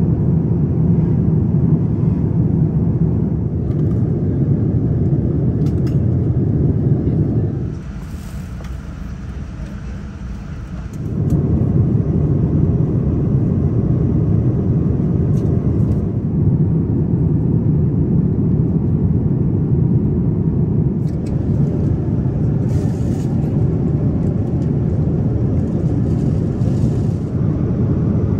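Steady low rumble inside the cabin of a Boeing 787-9 airliner, the noise of the aircraft's engines and motion heard through the fuselage. It drops quieter for about three seconds roughly a third of the way in, then returns at the same level.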